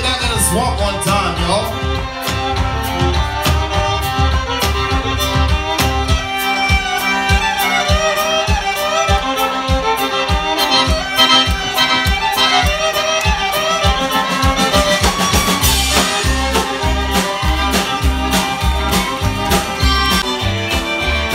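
Live Cajun band playing, with fiddle and button accordion carrying the tune over upright bass and a drum kit keeping a steady dance beat.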